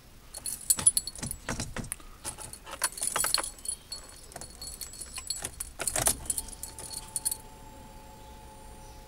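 Car keys jangling on their ring and clicking in a Fiat 500's ignition lock as the key is handled and turned, just before the engine is started. A faint steady hum comes in for the last couple of seconds.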